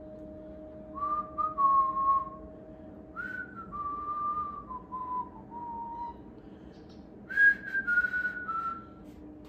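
A person whistling a slow tune in three short phrases, each stepping down in pitch, over a faint steady hum.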